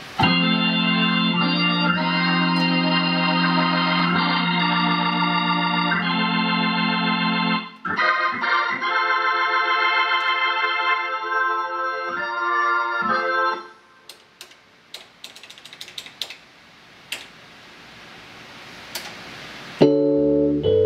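Nord Electro 5D stage keyboard playing held organ chords, the chord changing about eight seconds in. The organ stops after about 13 seconds, leaving scattered light clicks as front-panel buttons are pressed. Near the end a new, deeper patch comes in.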